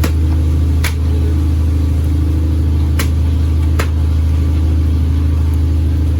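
Boat engine running steadily with a deep, even hum. Three short sharp clicks or knocks sound over it, about one, three and four seconds in.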